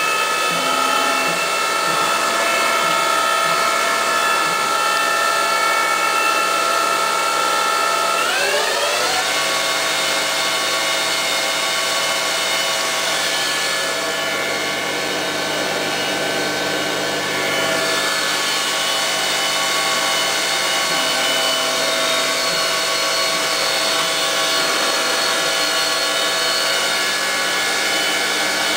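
Bridgeport VMC 600 machining centre's spindle running free, a loud steady whine of several tones. About eight seconds in the pitch rises quickly as the spindle speeds up, then holds at the higher speed. Near the end it begins to fall as the spindle slows down.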